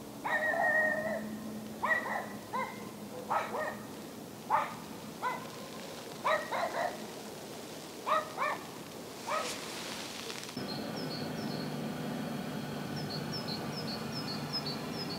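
A dog barking in irregular single barks and short runs through the first nine seconds or so. After about ten and a half seconds, a small bird's high chirps repeat evenly, two or three a second.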